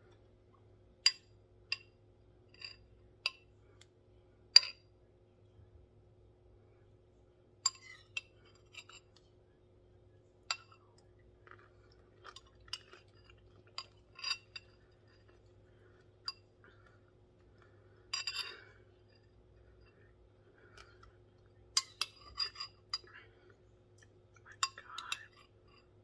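A metal spoon clinking against a ceramic bowl of fruit and coconut milk: about fifteen sharp, irregular clinks, the loudest about four and a half seconds in, with a faint steady hum underneath.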